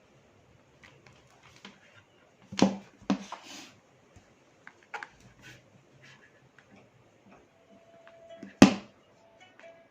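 Handling noise while wired headphones are being set up to play music: a few scattered clicks and knocks, the loudest a sharp knock near the end. A faint steady tone comes in over the last couple of seconds.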